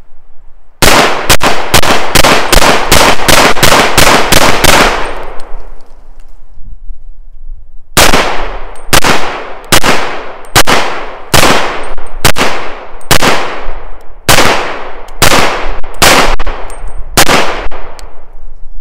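Llama Max-1 .38 Super 1911-style pistol firing in two rapid strings of shots: the first about three shots a second, the second a little slower after a pause of about three seconds, each shot sharp and ringing out briefly.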